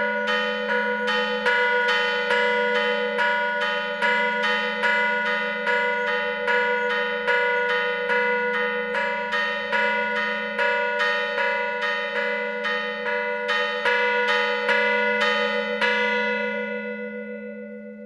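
Two mission bells in an arched bell wall rung by hand with ropes, struck over and over at about two strokes a second. Near the end the striking stops and the bells ring on, fading away.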